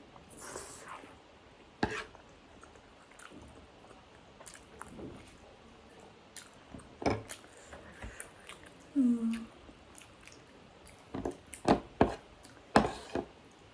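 Close-up eating sounds of chicken momos: chewing and wet mouth smacks, with scattered sharp clicks that come thicker and louder in the last few seconds.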